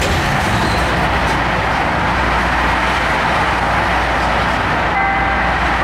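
Steady noise of expressway traffic coming in through the open doors of a CTA Blue Line rapid-transit car stopped at a station. Near the end, the first tone of the car's door-closing chime sounds, the signal that the doors are about to shut.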